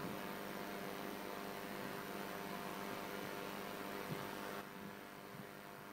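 Quiet, steady electrical mains hum with hiss, as from a sound system with no one speaking; it gets a little quieter about four and a half seconds in.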